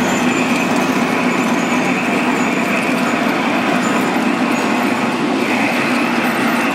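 G scale model trains running on the layout track: a steady, continuous noise of wheels and motors.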